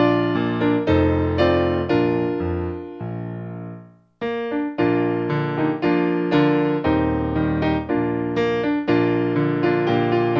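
Background piano music, a slow run of single notes and chords; it fades out about four seconds in, stops briefly, and starts again.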